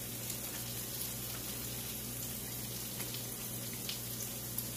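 Salmon croquettes frying in oil over browned onions in a skillet: a steady crackling sizzle.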